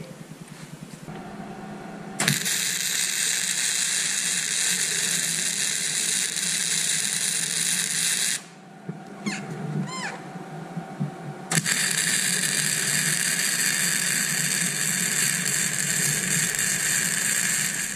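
Arc welding: two welds of about six seconds each, a steady crackling hiss from the welding arc that starts and stops abruptly, with a pause of about three seconds between them. These are the two tack welds fixing a steel block in place.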